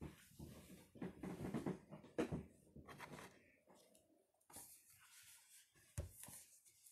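Faint rustling and small knocks of a person settling onto a sofa and handling a book, with pages flipped near the end and one dull thump about six seconds in.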